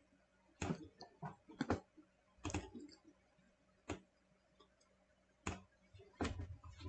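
Computer mouse button clicks, single and in quick pairs at irregular intervals, more of them close together near the end.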